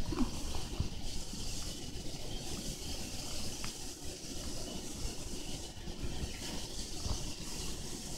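Praying mantis chewing a live Dubia roach, with a few faint crunches of the roach's shell spaced a second or more apart over a steady low rumble.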